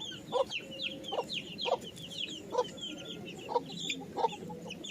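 Chicks peeping constantly in short, high, falling cheeps, with a hen clucking about once a second among them.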